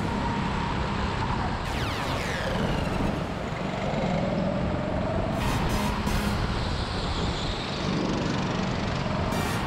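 Go-kart running hard around an indoor track, heard from the driver's seat: steady motor and tyre noise whose pitch drops and rises as the kart slows and speeds up through the corners.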